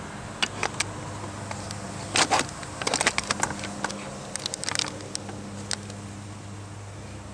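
Small scattered clicks and rattles of pop rivets and door-handle parts being handled and pushed into place by hand, with a busy cluster of sharper clicks about two to three seconds in, over a steady low hum.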